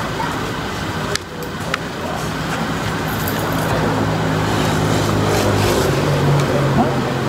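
Road traffic with a motor vehicle's engine hum, which grows louder in the second half.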